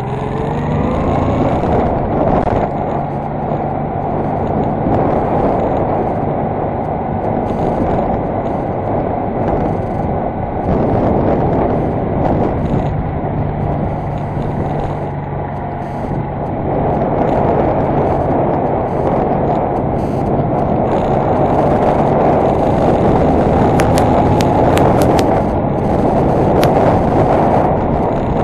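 Honda Deauville NT650V's V-twin engine running under way, heard from onboard together with the rush of wind and road noise; its pitch rises over the first couple of seconds as the motorcycle speeds up. A few sharp clicks come near the end.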